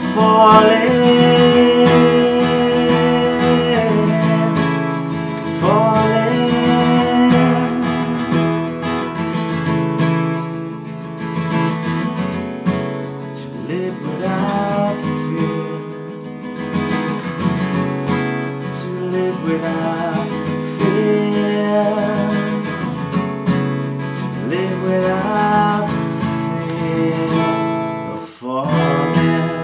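Acoustic guitar strummed and picked, with a man singing, holding the word "falling" over the first few seconds.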